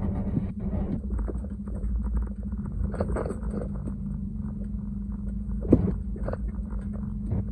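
Log truck's diesel engine running at low speed in the queue, heard from inside the cab as a steady low drone, with scattered cab rattles and one sharp knock about two-thirds of the way through.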